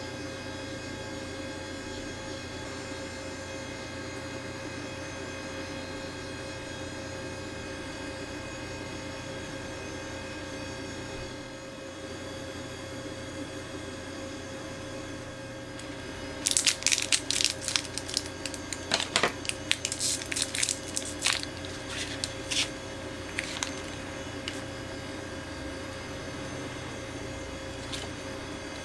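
Foil candy packet being torn open and crinkled by hand: a run of sharp crackles for several seconds around the middle, over a steady electrical hum.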